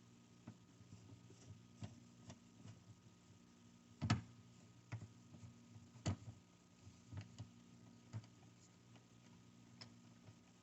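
Small scattered clicks and taps of a screwdriver backing out a screw from a refrigerator door flap hinge, with two louder knocks about four and six seconds in, over a faint steady hum.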